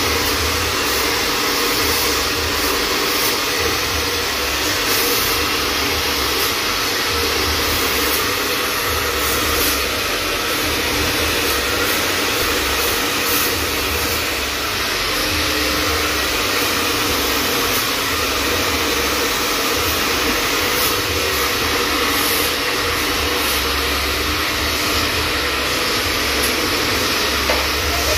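Hand-held electric hair dryer running steadily, a continuous rush of air as it blows a child's short hair over a round brush.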